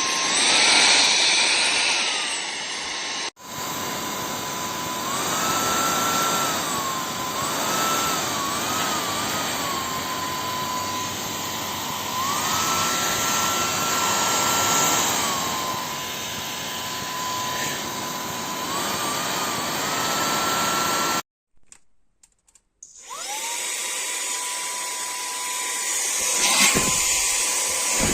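EBOSSOM cordless handheld vacuum cleaner running, a steady rush of air with a motor whine that rises and falls back several times. About 21 seconds in it cuts out, then starts again a second or two later, the whine rising as the motor spins up.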